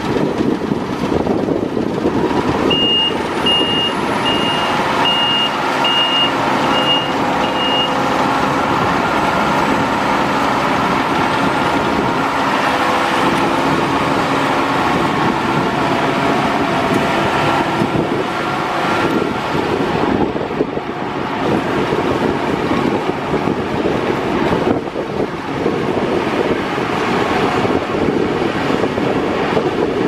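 Claas Lexion combine harvester running steadily, engine and threshing machinery together. A reversing alarm beeps about seven times, evenly spaced, from a few seconds in to about eight seconds.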